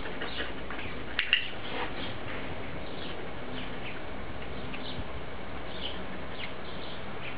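Small birds chirping intermittently over a steady outdoor background, with a couple of short, sharper sounds about a second in.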